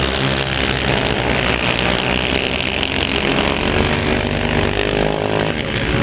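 Several racing quad bikes (ATVs) running hard on a dirt track, one passing close, their engine notes rising and falling as they rev and back off.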